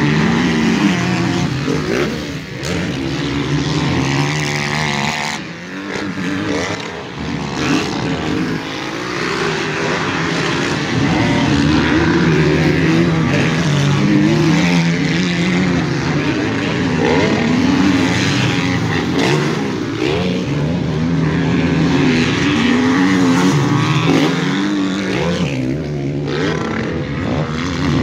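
Several motocross bikes on the track, their engines revving up and down in pitch over and over as riders accelerate and shift, under a steady rush of engine and wind noise.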